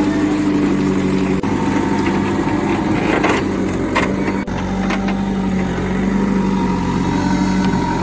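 An engine idling steadily, with a brief louder swell of noise about three seconds in.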